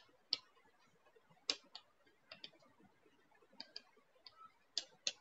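Chalk tapping on a chalkboard while writing: about ten faint, short clicks at irregular intervals.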